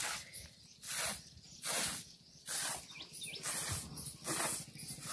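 Short-handled broom swishing across a concrete floor in steady sweeping strokes, about one stroke a second.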